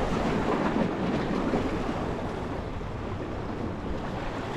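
Steady surf washing against the rocks of a stone jetty, with wind noise on the microphone.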